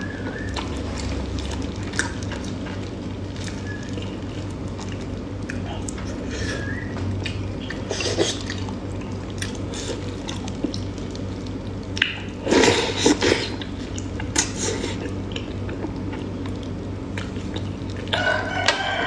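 Wet, sticky squelches and clicks of plastic-gloved hands tearing apart sauce-soaked braised meat, with a cluster of louder crackly strokes a little past halfway. A steady low hum runs underneath.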